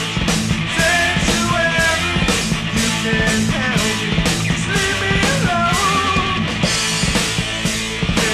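Hard rock song: a singer over electric guitars, bass and a steady drum beat.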